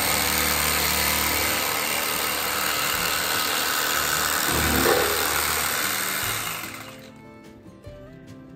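Electric knife running, its reciprocating blades sawing through a loaf of bread, with a steady motor hum under the cutting noise; it stops about seven seconds in.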